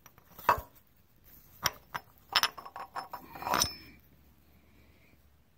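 Metal parts and hand tools clinking against each other during work on an ISX Cummins 15's injection cam gear: about six sharp clinks and knocks over the first four seconds, the last ringing briefly.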